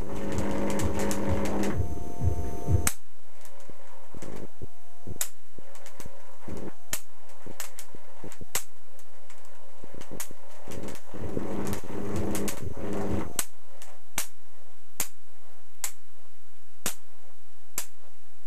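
24 kV high-voltage electric arc: a sustained buzzing arc for about the first three seconds and again for a couple of seconds past the middle, with sharp, irregular cracks of single spark flashovers in between.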